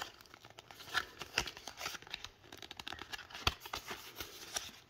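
Paper-card packaging of a memory card being torn and crinkled open by hand: irregular crackling with small snaps, one a little louder about three and a half seconds in.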